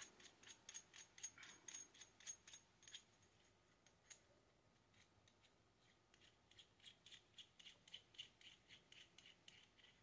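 Faint, quick clicking of a small metal coax connector housing being twisted by hand onto the cable end, about four to five clicks a second. The clicking stops for a few seconds in the middle and then starts again.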